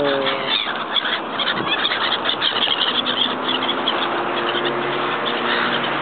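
A flock of gulls calling over and over, wings flapping, as they crowd in over the water for food that is being thrown.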